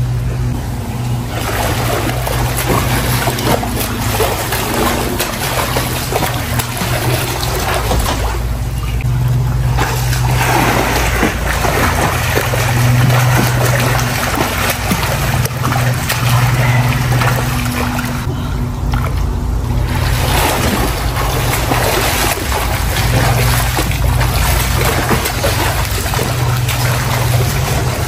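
Water splashing and trickling, with background music over it.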